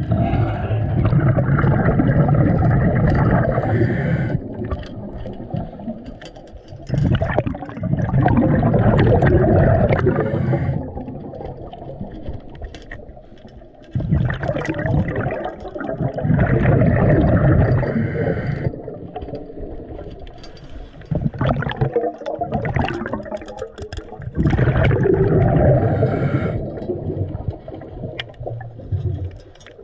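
Scuba diver breathing through a regulator underwater: long bursts of exhaled bubbles gurgling about every seven seconds, with quieter spells between them.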